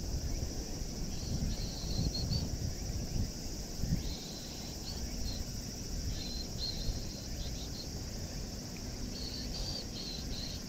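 Wind buffeting the microphone in low gusts, strongest in the first few seconds, over a steady high hiss, with insects chirping in short high bursts every second or two.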